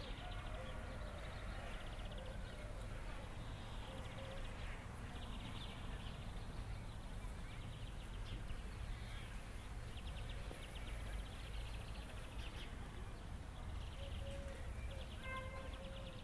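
Birds singing in the background, with repeated fast trills and short chirps, over a steady low rumble.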